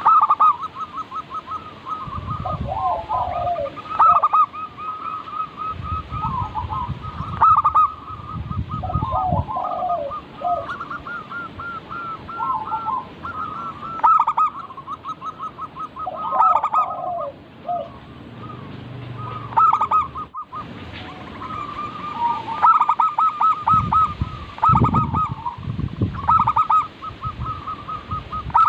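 Zebra doves (perkutut) cooing, their rapid stuttering notes and falling phrases repeating and overlapping throughout.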